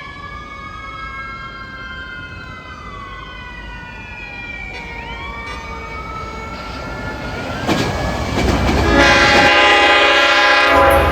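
Long Island Rail Road diesel train led by a DM30AC dual-mode locomotive, drawing closer and louder, with several whining tones that glide slowly up and down. In the last two seconds its multi-tone horn sounds loudly.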